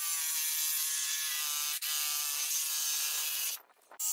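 Cordless 20-volt jigsaw cutting plywood: a steady motor whine with the blade rasping through the wood, a brief dip just before two seconds in, stopping a little before the end, then one short final burst.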